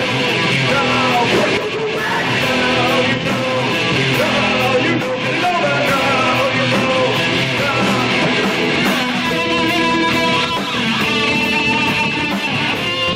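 Live rock band playing at a steady volume, guitar to the fore.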